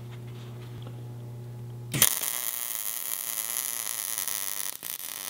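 A steady low hum, then about two seconds in an electric arc welder strikes up and runs as a steady loud hiss with a brief break near the end, welding a nut onto a small steel tab.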